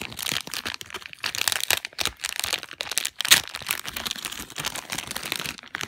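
Shiny plastic packaging bag being peeled open and handled: dense crinkling and crackling, with a sharp crack about three seconds in.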